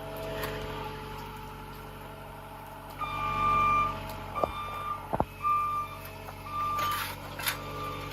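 A vehicle's reversing alarm beeping repeatedly, starting about three seconds in, over a steady engine running. A couple of sharp knocks come in the middle.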